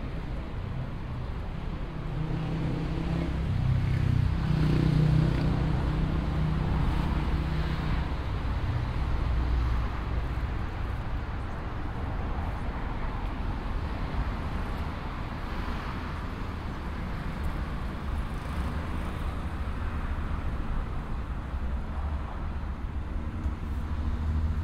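City street traffic with a steady rumble; a motor vehicle's engine hum grows louder and fades away about two to eight seconds in.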